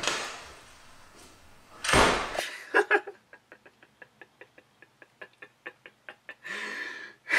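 A door slams shut about two seconds in, followed by a run of faint, quick clicks, about five a second.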